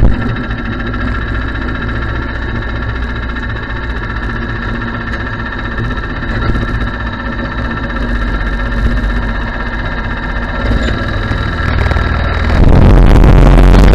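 Go-kart's small engine idling steadily while stopped, then revving up hard near the end as it pulls away towing a utility trailer.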